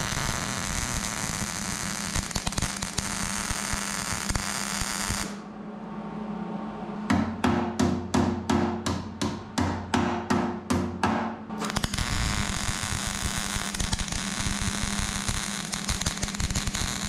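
MIG welder arc crackling steadily while running beads on a steel gas tank hanger bracket. The arc stops for a few seconds, during which about a dozen quick sharp taps sound on the metal, roughly three a second. Then the welding crackle starts again.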